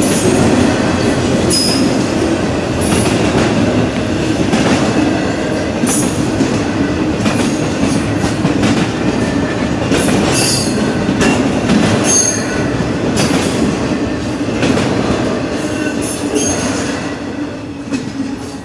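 Intermodal freight train's cars rolling past at close range: a steady rumble and clatter of wheels on rail, with brief high wheel squeals every second or so. The sound falls away near the end as the last cars pass.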